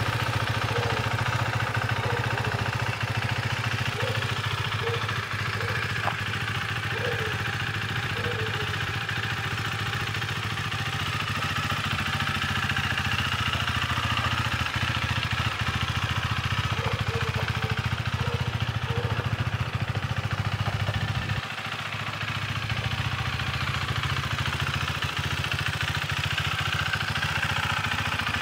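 KTM 390 Duke's single-cylinder engine idling steadily, with a brief dip in level about three quarters of the way through.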